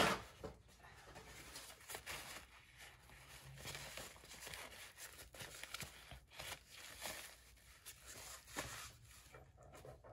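Paper towel rustling and crinkling as it is handled and rubbed over an inked fountain pen converter to wipe off excess ink, with a sharp knock right at the start.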